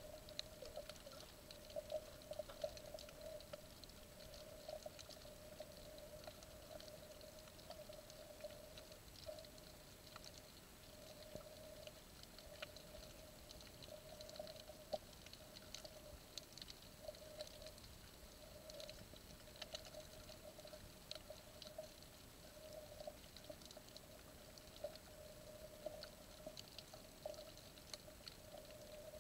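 Near silence underwater: faint, irregular ticking and crackling over a faint steady hum.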